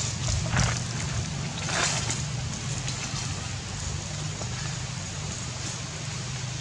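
Steady low hum under an even hiss, with a few brief rustles in the first two seconds.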